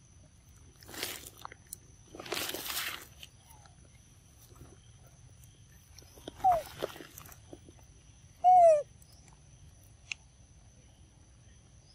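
Two short, falling squealing calls from a young macaque, about six and eight and a half seconds in; the second is the loudest. Before them come two brief rustling bursts, about one and two and a half seconds in.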